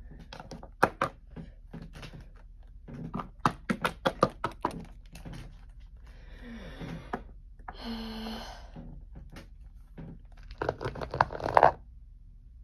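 Small hard plastic toy figures being handled on a wooden table: clusters of light clicks and knocks as they are picked up and set down, with a short rustle in the middle and a louder run of clicks near the end.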